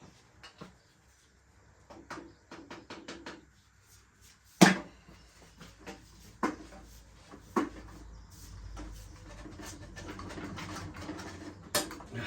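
Tools and metal parts being handled while stripping down a motorcycle: a quick run of light clicks, then a sharp metal knock about five seconds in, a few lighter knocks, and scraping and rustling toward the end.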